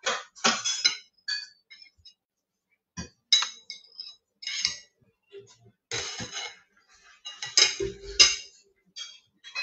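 A table knife clinking and scraping on ceramic plates as food is cut, in irregular separate strokes with a ringing edge, and a heavier knock about eight seconds in.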